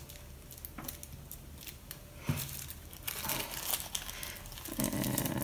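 Tissue paper crinkling and rustling in intermittent soft crackles as it is folded and rolled between the fingers into a paper petal.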